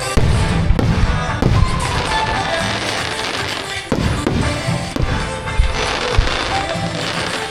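Aerial fireworks shells bursting again and again at irregular intervals, over the recorded music that accompanies the show.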